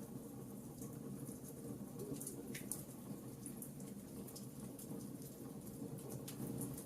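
Wood fire in a fireplace crackling: many small, sharp, irregular pops and snaps over a steady low rumble of the flames.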